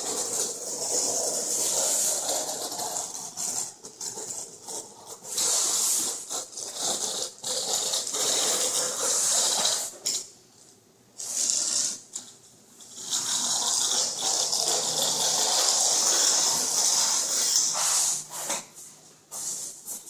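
Long scraping strokes of a screed straightedge dragged over wet leveling compound on a concrete subfloor, with two short pauses between passes around the middle.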